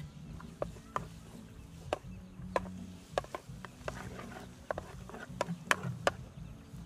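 Wooden spoon stirring in a steel wok, knocking and scraping against the metal in about ten sharp, irregular taps.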